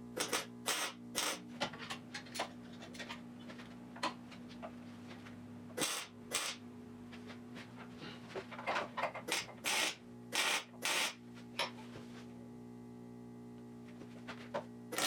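Welder tack-welding a trailing-arm support to a steel car frame: a series of short, sharp crackling bursts at irregular intervals, with a lull past the middle, over a steady low hum.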